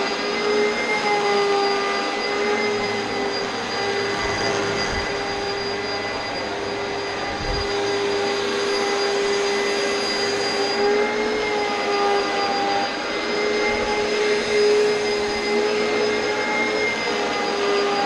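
Oreck XL2 upright vacuum cleaner running steadily as it is pushed over carpet: a constant motor whine over a broad rushing of air, its pitch wavering only slightly.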